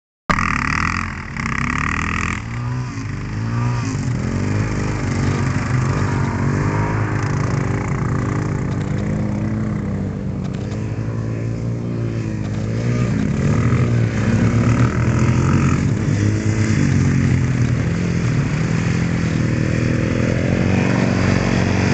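Two dirt bike engines revving and running as the bikes race across lake ice. Their pitch rises and falls again and again under the throttle and through the gears, and gets louder in the later part.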